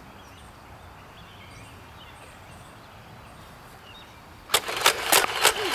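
Faint, steady outdoor background with a few tiny high chirps. About four and a half seconds in it breaks into a loud, rapid run of sharp clicks and knocks, several a second.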